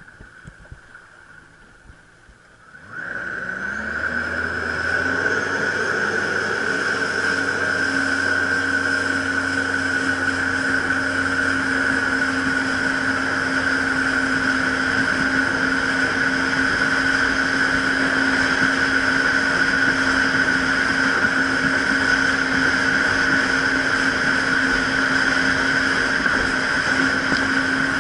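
Jet ski engine and jet pump, quiet at first, then opening up about three seconds in, its pitch rising as it speeds up, and holding a steady high-speed drone with water rushing past the hull.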